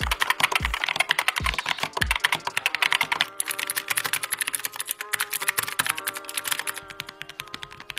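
Fast typing on budget 61-key mechanical keyboards: first a TMKB GK61 with optical red switches, then, from about three seconds in, an Instago 61-key with clicky optical blue switches. Quiet background music with a few bass thumps runs underneath.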